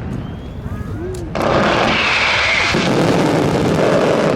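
Fireworks going off. Quieter at first, then about a second and a half in a sudden, dense, loud barrage of bangs and crackling that keeps going.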